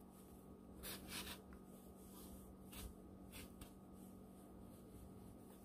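Near silence broken by a few faint, brief rustles of yarn being drawn through crocheted stitches with a yarn needle.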